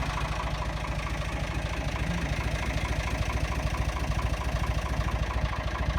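Narrowboat engine running steadily, heard loud from inside the engine room, with an even, rapid low beat.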